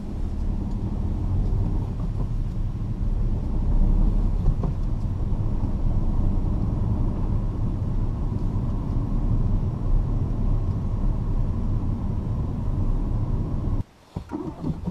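Ford Fiesta's 1.0-litre EcoBoost three-cylinder petrol engine heard from inside the cabin, running at low revs with road rumble during slow urban-style driving at about 30 km/h. The sound cuts out suddenly for a moment near the end.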